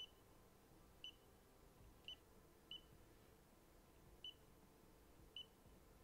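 Six short, faint, high-pitched electronic beeps at irregular intervals over near silence.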